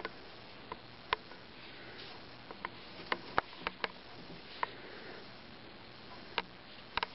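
Light handling noise from an EVA foam helmet piece turned in the hands and held up to the face: a dozen or so small, sharp clicks and taps scattered over a low background, bunched most closely in the middle.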